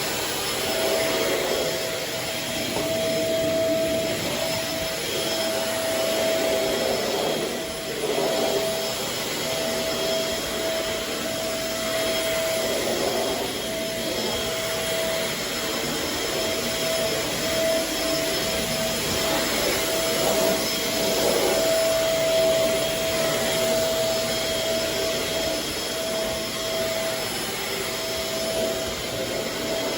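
Shark Navigator Swivel upright bagless vacuum cleaner running steadily, a constant motor whine over airflow noise.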